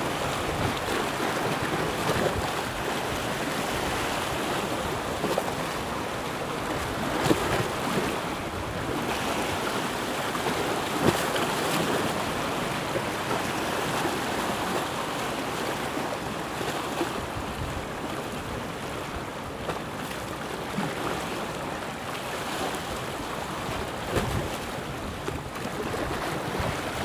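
Small sea waves sloshing and lapping against shore rocks, with wind on the microphone, and two brief sharper hits about 7 and 11 seconds in.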